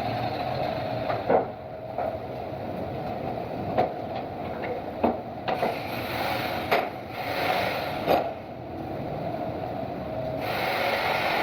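Wood knocking and rubbing as pieces of wood are handled in a workshop: about seven sharp knocks, irregularly spaced, over a steady hum.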